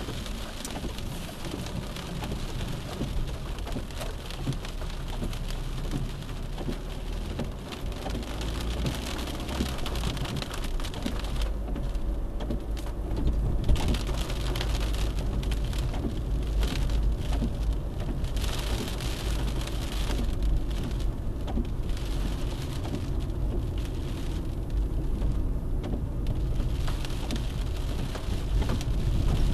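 Car driving, heard from inside the cabin through a dash cam: steady road and tyre noise with a low engine rumble that grows louder about eight seconds in.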